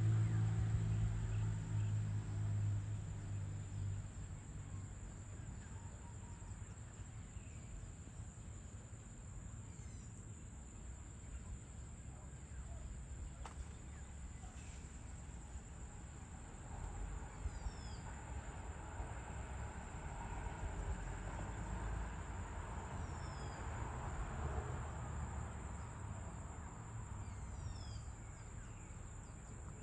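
Evening outdoor ambience: insects keep up a steady high drone, and a bird gives a few short falling calls, over a low rumble. A low hum fades out in the first few seconds.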